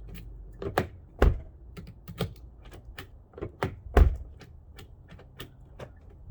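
Key being worked in a newly installed driver's-door lock cylinder on a 2020 Kia Sportage, testing that it unlocks: a run of sharp clicks, with two louder thunks about a second in and about four seconds in.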